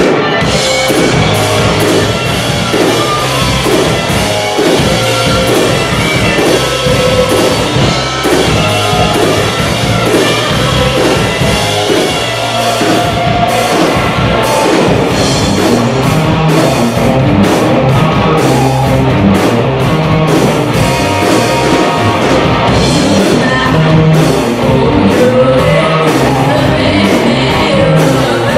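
A live rock band playing loud: distorted electric guitars, bass guitar and a drum kit keeping a steady beat, with a singer's voice over them.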